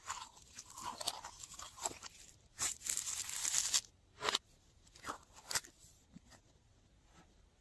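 Slime being worked by hand with things mixed into it, making crunchy, crackling squishes. A louder hissing crackle comes about two and a half seconds in, then a few sharp crackles, and it fades near the end.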